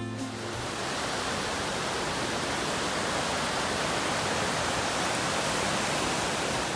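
Fast mountain stream rushing over rocks and small cascades: a steady, dense sound of whitewater.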